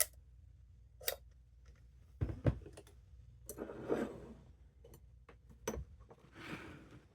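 Small metal lock and picking tools being handled: a string of sharp clicks and taps, with a couple of duller knocks about two and a half seconds in and short scraping rubs near 4 and 6.5 seconds.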